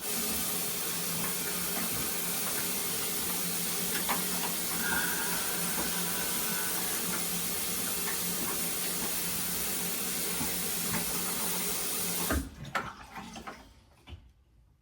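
Water running steadily from a tap, shut off about twelve seconds in, followed by a few light knocks.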